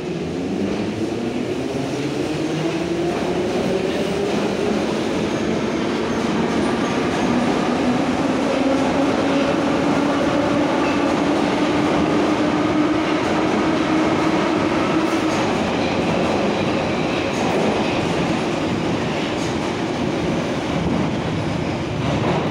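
Em-series metro train (Ema-502 head car, built 1975) accelerating out of the station past the platform. Its traction motors whine, rising steadily in pitch for about fifteen seconds before the whine fades. The noise of the passing cars on the rails carries on as the rest of the train goes by.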